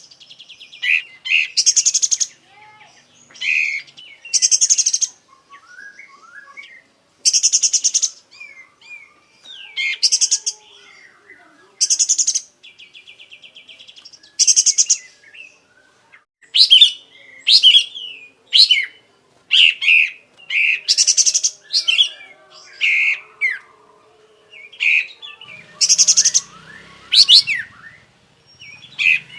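Kapas tembak, a bulbul kept as a cage songbird, singing hard and without pause: short loud phrases every second or two, some rapid buzzy trills and some shorter whistled notes, a varied song full of borrowed phrases.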